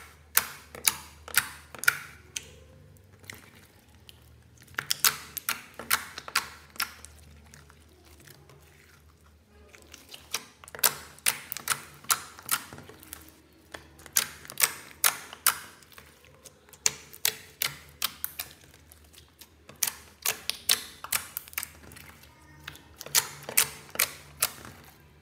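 Clear glue slime clicking as fingers press and poke into it: sharp clicks in quick runs of several a second, with short pauses between runs.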